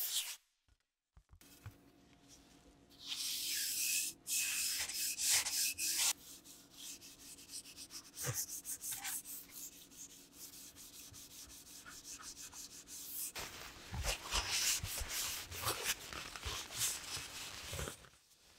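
An aerosol spray can hissing for about three seconds, then paper towel rubbing and wiping wet finish over a wooden block in irregular strokes, louder in the last few seconds.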